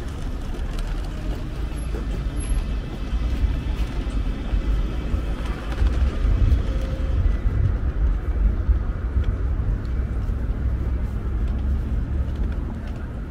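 City traffic noise: a steady low rumble of passing vehicles, with a faint high whine in the middle.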